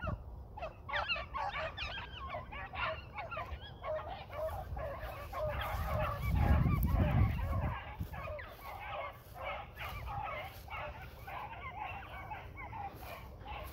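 A pack of beagles baying on a running rabbit: many overlapping short bawls and yelps, steady throughout. About six seconds in, a low rumble swells for a couple of seconds.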